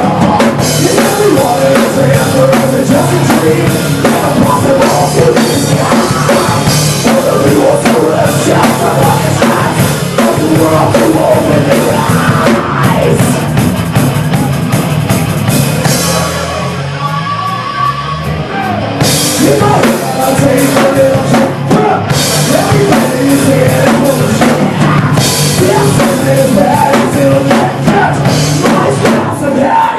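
Live heavy rock band playing loud: distorted electric guitars, a drum kit with cymbals, and a singer on a microphone. About 16 seconds in the drums drop out for roughly three seconds under a falling low slide, then the full band comes back in.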